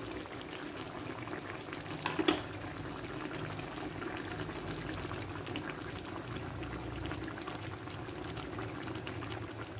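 Chicken broth simmering in an aluminium wok, bubbling and popping steadily, while instant coconut milk is squeezed from its packet into the pan. A single sharp click about two seconds in.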